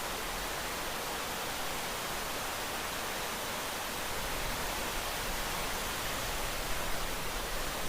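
Rain sound effect: a steady, even hiss of rain with little low rumble.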